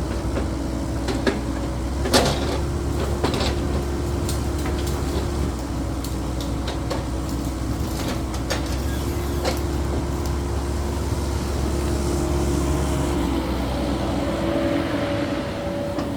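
Caterpillar 308E2 mini excavator's diesel engine running steadily under working load, with a held droning tone and low rumble, and scattered sharp metal clanks from the bucket and linkage, the loudest about two seconds in.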